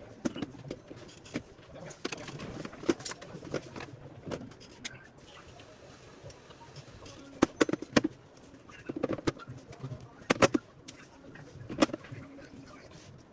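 Irregular clicks and knocks of hard parts being handled during a UPS battery change, in quick clusters about halfway through, over a low background murmur.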